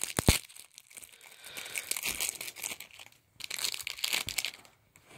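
Plastic shrink wrap on a deck of cards crinkling as it is handled, in two stretches of rustling, with a couple of sharp clicks at the start.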